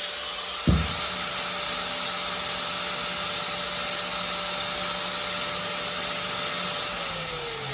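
Makita 9556 electric angle grinder running free at a steady pitch, very smooth, with one sharp knock about a second in. Near the end it is switched off and its whine falls steadily as it spins down.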